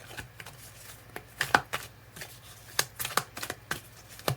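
A deck of oracle cards being shuffled by hand, with irregular snaps and slaps of the cards, some louder than others.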